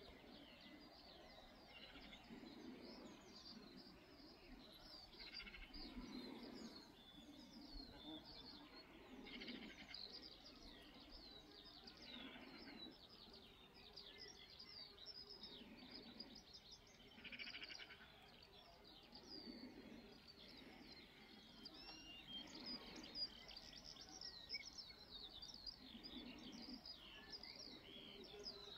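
Faint birdsong: many small birds chirping and twittering throughout, over soft low rumbles that swell every few seconds.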